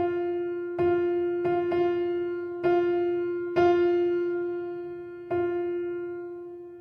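Background music: slow, sparse keyboard notes in a piano-like tone, about seven in all, each struck and left to fade.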